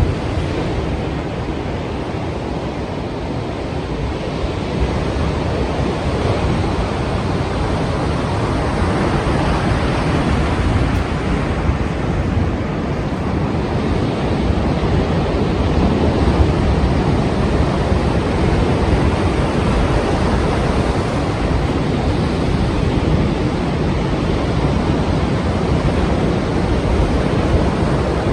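Strong sea waves breaking, a continuous rush of surf that swells gently in level, with wind on the microphone.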